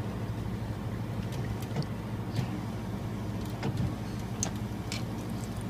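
Steady low hum with faint scattered clicks over it.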